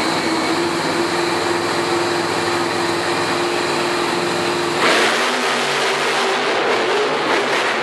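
Monster truck engine running loud under power with a steady pitch. About five seconds in, the sound changes abruptly to a rougher, noisier engine sound.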